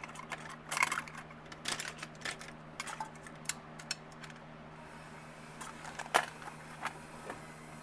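Small metal tools and parts clicking and clattering as they are handled and put into toolbox drawers, in scattered clusters of sharp clinks, with a steady low hum underneath.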